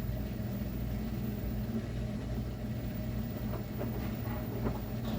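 LG commercial washing machine running with a steady low hum, with a few faint ticks in the second half.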